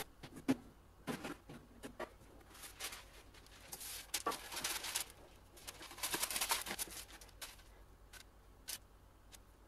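Baking paper rustling and crinkling in two spells as it is spread over a metal baking tin, after a few light knocks and taps.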